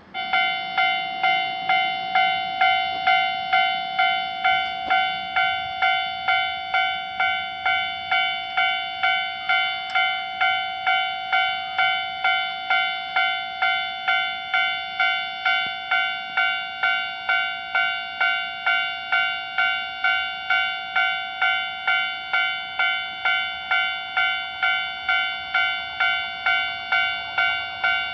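Japanese railroad crossing warning bell starting up abruptly and ringing its 'kan-kan' clang steadily, about two strikes a second, signalling that a train is approaching.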